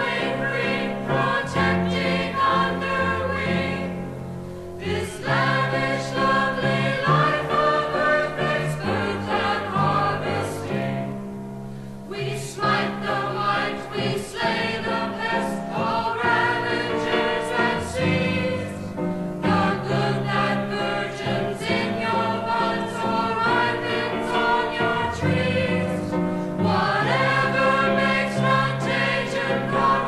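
Choir singing a hymn-like anthem in held chords, played from a vinyl record.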